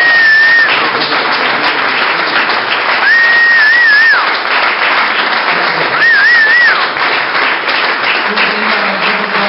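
Audience applauding steadily, with three long, loud whistles of approval cutting through: one right at the start, one about three seconds in with a wavering middle, and one about six seconds in with a trill.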